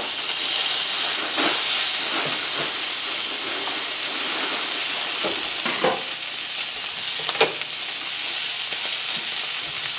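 Wagyu steak searing in hot oil in a frying pan: a steady sizzling hiss with a few sharp pops and spits.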